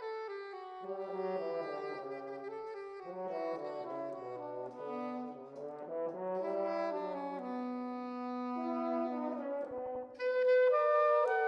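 French horn and soprano saxophone playing a slow duet, the horn carrying the melody in its mellow middle range. About ten seconds in, the soprano saxophone comes in louder on a higher line.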